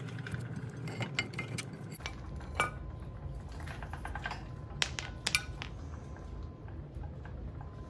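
Hand tools and metal brake parts clinking and knocking against each other, a scattering of sharp metallic clicks with the loudest about two and a half seconds in and a few around five seconds in, over a steady low hum.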